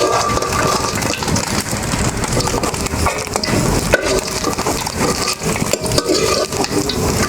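Hot oil sizzling in a pan as small fried fish are lifted out, with repeated clicks and scrapes of a metal spatula against the pan.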